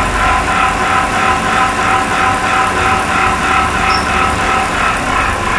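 GM DC3-series label finishing machine running at high speed, its double-stroke semi-rotary die cutter cutting a web of small labels. The sound is a steady machine noise with an even, rapid pulsing over a constant whine.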